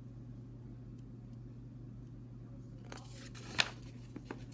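A paperback picture-book page being turned: a short papery rustle and swish about three seconds in, followed by a couple of light taps as the page settles, over a low steady hum.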